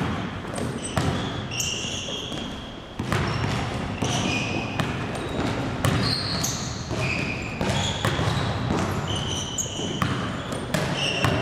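A basketball dribbled on a hardwood gym floor, with bounces coming at uneven intervals. Sneakers squeak briefly and often on the court as the player cuts and changes direction.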